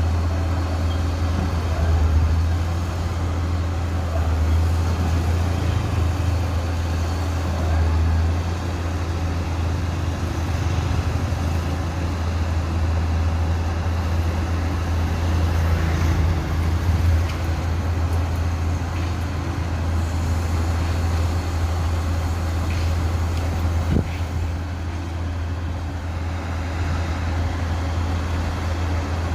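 A Sunward SWDM 360H rotary drilling rig's diesel engine running steadily with a deep, even hum, with one sharp knock late on.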